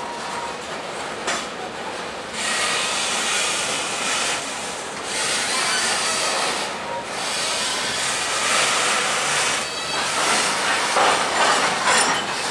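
Freight cars rolling past on the rails: a steady, mostly high-pitched rushing and hissing of wheels on rail that swells and drops back every couple of seconds.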